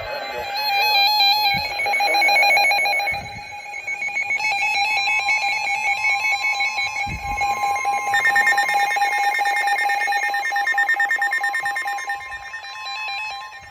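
Several NOAA weather radios alerting together for a severe thunderstorm warning. Pulsing alert beeps are joined about four seconds in by the steady 1050 Hz weather radio warning alarm tone, which holds until just before the end.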